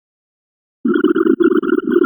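Complete silence for almost a second, then a dense, rapid stream of short sound effects starts up abruptly and keeps going, flickering several times a second.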